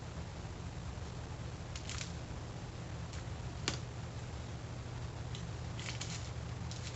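Light clicks and taps as a plastic model car interior tub and a paintbrush are handled on paper, with the sharpest click about three and a half seconds in. A steady low hum runs underneath.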